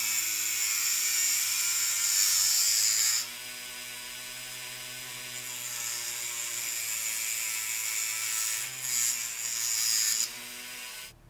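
Rotary tool with a cut-off wheel running at speed, its motor whine steady, grinding through a thin brass tube. The high hiss of the cut is loudest for the first three seconds and again from about six to ten seconds in, and the tool cuts off just before the end.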